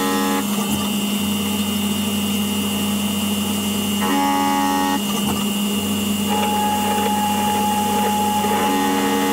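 CNC machining center's spindle running a single-insert finish boring head through a cylinder bore in an aluminum LS block, with coolant spraying: a steady machine hum. A higher ringing tone comes in for about a second roughly every four and a half seconds, and another steady tone joins about six seconds in.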